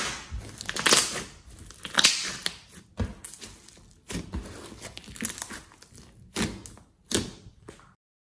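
Thick glossy slime being squeezed and stretched by hand, squishing in short bursts about once a second. The sound stops abruptly near the end.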